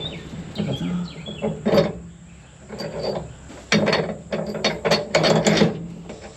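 Ratchet wrench clicking in several runs of strokes as a bolt on a combine's belt drive is loosened, the longest run in the second half.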